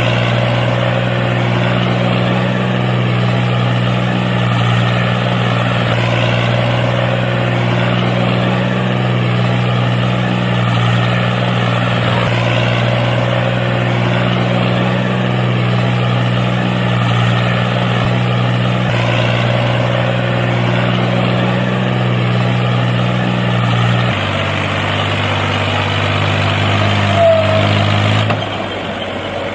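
Tractor engine running steadily at a low, even speed. Its note changes about 24 seconds in, and it dies away just before the end.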